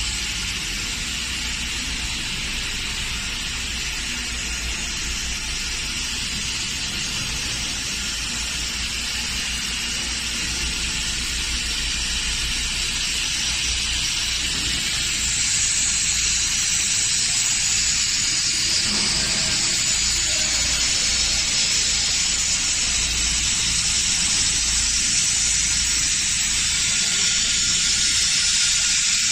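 Six-axis robot laser welding a sheet-metal part: a steady hiss over a low, even hum, getting louder and brighter about halfway through.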